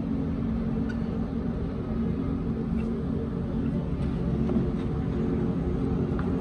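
A steady mechanical hum, even in level and pitch, with a few faint clicks.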